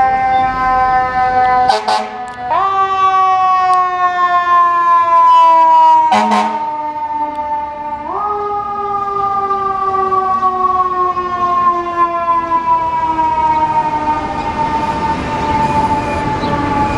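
Fire engine siren on a 2016 KME pumper, sounding one long tone that slowly falls in pitch and is twice pushed sharply back up, about two and a half and eight seconds in. Two brief sharp noises cut across it, about two and six seconds in.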